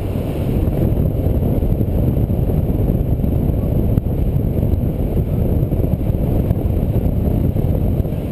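Wind rushing over a GoPro HD Hero's microphone during paraglider flight: a steady, loud low rumble with no let-up.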